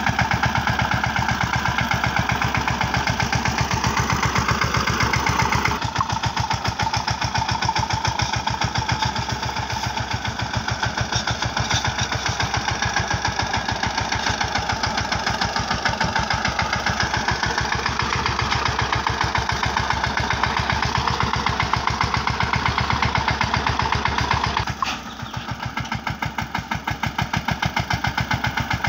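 Mahindra Yuvraj 15 hp mini tractor's single-cylinder diesel engine running under load, pulling a fully loaded trailer, with a steady rapid beat. The sound shifts abruptly twice, dropping briefly in level about 25 seconds in.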